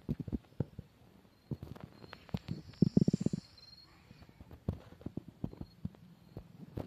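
Footsteps through tall grass and weeds: irregular thuds and rustles, with a quick run of steps and rustling about three seconds in.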